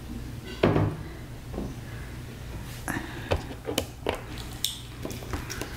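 Plastic orange Fanta bottle knocking and clicking against the tabletop as it is lowered from drinking and set down among the other soda bottles: a series of small taps and clunks, after a louder short sound about a second in.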